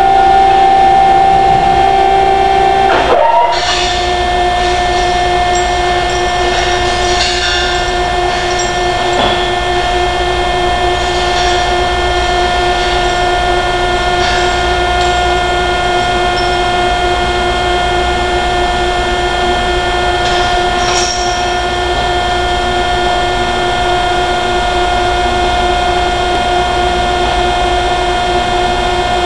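Steady, loud industrial machine drone, a pitched tone with several overtones over a low rumble, likely the furnace's opening machinery running. About three seconds in it breaks briefly and settles slightly lower in pitch.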